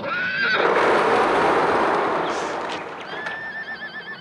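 Horses whinnying: a high, wavering neigh at the start and another from about three seconds in that falls away at its end, with a loud rushing noise between them.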